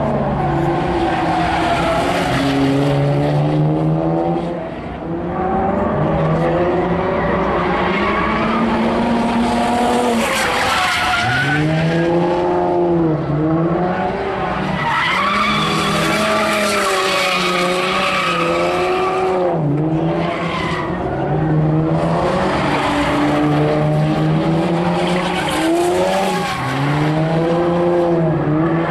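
A car drifting in circles: its engine revs up and down over and over as the tyres squeal through each slide.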